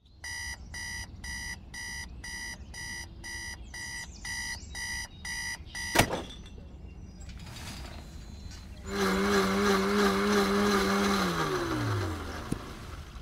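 Electronic beeping, about two high beeps a second for some six seconds, ending in a sharp click. Later comes a burst of rushing noise with a steady low hum that drops in pitch and fades out.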